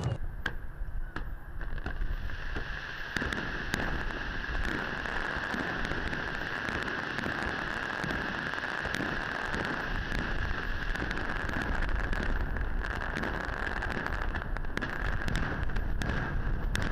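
Fireworks display going off: an irregular string of sharp bangs and crackles from bursting shells, over a steady high-pitched drone.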